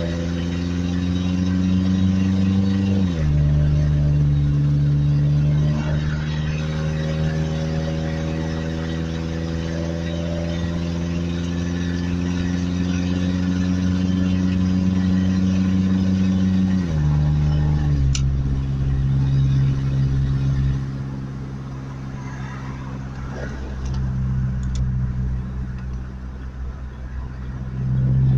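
Truck engine heard from inside the cab while driving, its pitch climbing slowly as it pulls and dropping sharply twice, about three seconds in and again around seventeen seconds in, as the transmission shifts up. It then quiets for several seconds and picks up again near the end.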